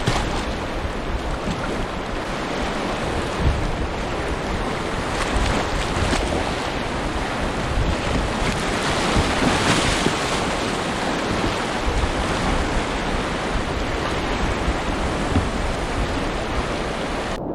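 Fast, high-water river rushing around a kayak, a steady loud wash of whitewater, with wind buffeting the action-camera microphone.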